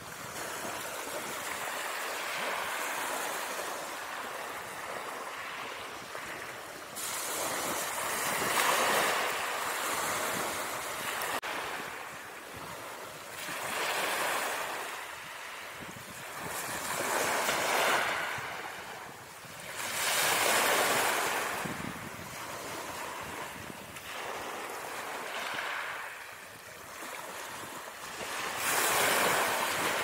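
Small sea waves washing onto a shoreline: a rush of surf that swells and fades about every three to four seconds.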